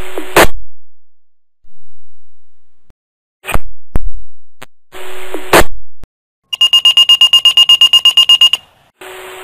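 Motorola Minitor fire pager: short bursts of radio static, each cut off with a click, then about two seconds of rapid high-pitched alert beeping, roughly ten beeps a second, signalling a page for a call. Near the end the static hiss comes back and holds.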